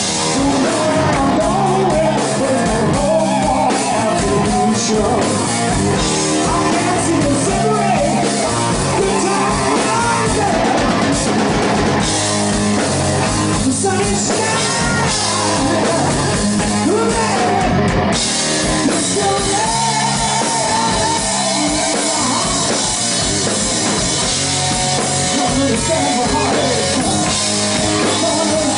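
A hard rock band playing live and loud: distorted electric guitar through Marshall amplifiers, with bass and a drum kit, and a male lead vocal.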